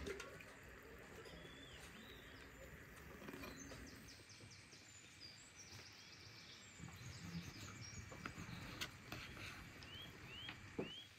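Faint clicks and taps of a knife against a metal baking tray as pastry is cut and lifted out, over quiet background hiss. A few short rising bird chirps, three in a row near the end, and one sharper click near the end.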